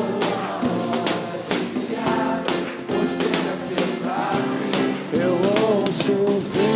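Live acoustic worship band playing a song, with a sung melody over steady percussion strikes about twice a second.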